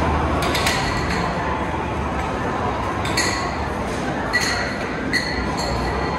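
Amusement arcade din: a steady wash of game-machine noise, with bright electronic pings and chimes from the machines several times.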